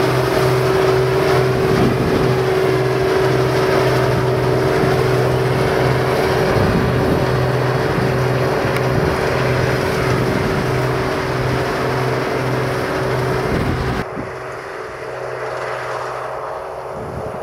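Claas Dominator 208 Mega combine harvester running while harvesting, a steady machine drone with a constant hum and an evenly pulsing low throb. About fourteen seconds in, the sound cuts abruptly to a quieter, duller version of the same running machine.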